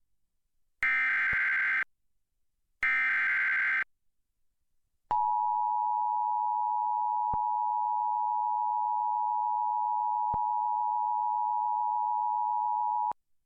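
Emergency Alert System broadcast alert: two short bursts of SAME header data, each about a second long and a second apart, then after a pause the steady two-tone EAS attention signal for about eight seconds, cutting off abruptly. It signals the start of a severe thunderstorm warning.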